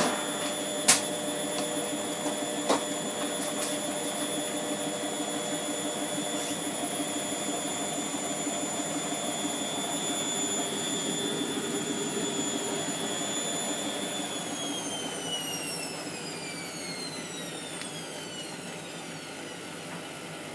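Hotpoint WMF720P washing machine spinning with its drum still full of suds: a steady high motor whine and drum hum, with two sharp clicks near the start. About two-thirds of the way in the whine falls steadily in pitch as the drum slows to a stop, a spin held back by a heavy suds lock.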